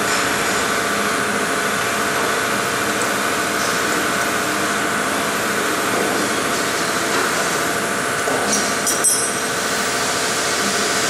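Steady mechanical hum of workshop machinery, with a short cluster of sharp metallic clinks about nine seconds in as a steel wrench is set down on the CNC router's table.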